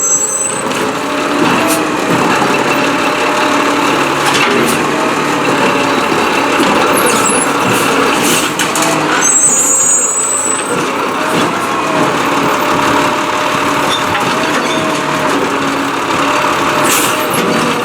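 Peterbilt 320 garbage truck running steadily, with a few short sharp knocks and a brief high squeal about halfway through.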